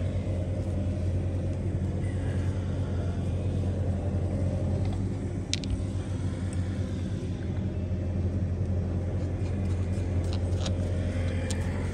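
An engine running steadily at idle, a constant low drone. A single sharp click comes about five and a half seconds in.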